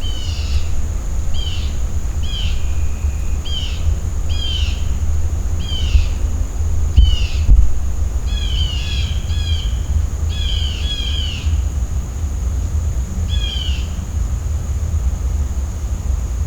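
A songbird calling with a string of short, clear notes that slur downward, about one a second and sometimes doubled. Under it is a steady low rumble and a constant thin high drone.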